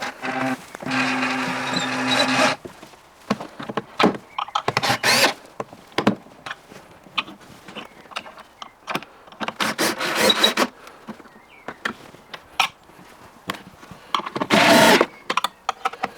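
A cordless power driver runs steadily for about two seconds, then clicks, knocks and several short rasping bursts of wooden panel parts being handled and screwed together while a door panel is fitted.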